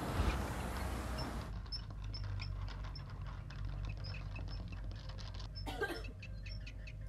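Rat sound effects: many short, high squeaks and light pattering of a rat scurrying across carpet, over a low steady hum. A rush of noise cuts off about a second and a half in, and there is a brief rush again near six seconds.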